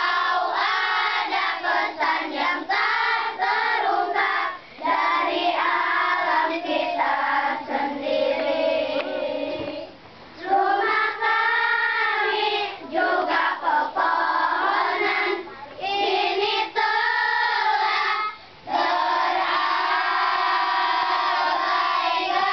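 A group of children singing a song together in chorus, in sung phrases with short pauses for breath between them.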